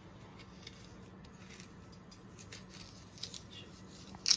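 Small kitchen knife cutting and scraping into a hard raw quince in faint short strokes, with one sharper click near the end.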